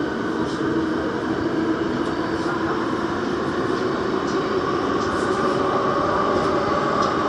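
Daejeon Metro Line 1 train running through a tunnel: a steady rumble of wheels on rails with a steady hum, growing slightly louder.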